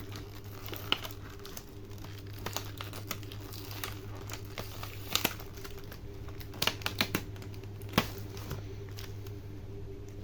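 Plastic packaging and a laptop RAM module being handled: crinkling with scattered sharp clicks and taps, the loudest a cluster of clicks about two thirds of the way in and one near the end, over a steady low hum.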